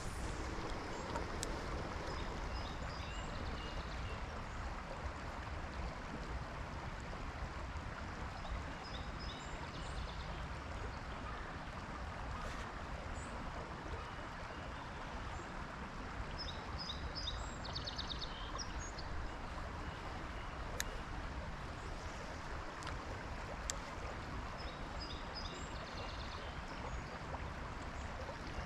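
Creek water running over rocks in a shallow riffle, a steady rushing. A bird's short, high chirping phrases come and go about four times over it.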